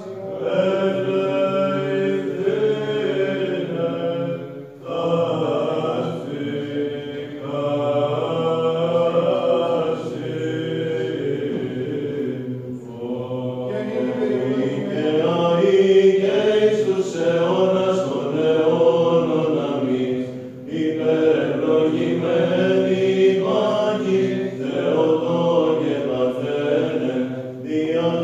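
Byzantine (Greek Orthodox) chant: men's voices sing a winding melody over a steady held low drone, the ison, with brief breaks between phrases.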